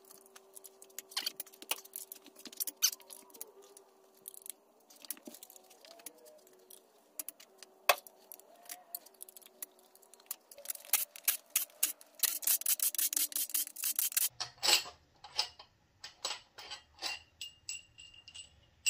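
Metal socket and breaker bar clicking and clinking on steel cylinder head bolts as they are broken loose and backed out of an engine's cylinder head, with one sharp snap about eight seconds in and a fast run of clicks in the middle. Near the end, loose head bolts clink together in a hand.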